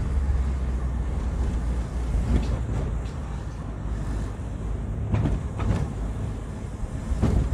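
Small manual car's engine and road noise heard from inside the cabin, a steady low rumble while driving slowly, with a few faint knocks.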